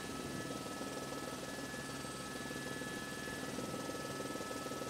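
Helicopter cabin noise: the engine and rotors running steadily in flight, with a couple of faint steady high-pitched tones.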